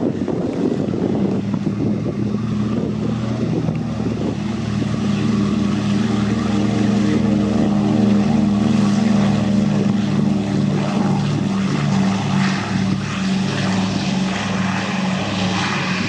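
Propeller aircraft engine droning with a steady pitch, getting louder toward the middle and easing off again as it passes.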